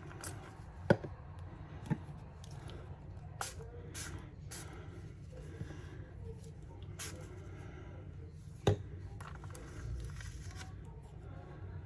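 A hand pump spray bottle of ink giving several short hissing sprays, with a couple of sharp knocks about a second in and near the end, over a steady low hum.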